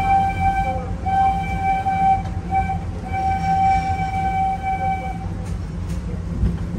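Wildlife Express Train's steam locomotive whistle blowing one steady note in four blasts, long, long, short, long, the railroad grade-crossing signal, over the low rumble of the train getting under way.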